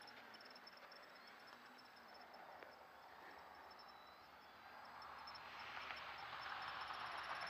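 Crickets chirping faintly in a steady, fast, even rhythm, with a soft rushing noise that swells over the last couple of seconds.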